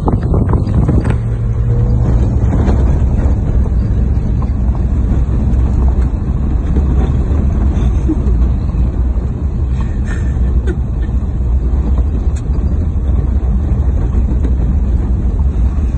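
Four-wheel-drive vehicle driven along a rough dirt track, heard from inside the cab: a steady low rumble of engine and tyre noise.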